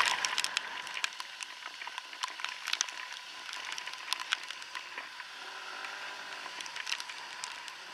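Rain and wind hissing on a helmet-mounted camera while riding a scooter in the rain, with irregular sharp ticks of raindrops striking it.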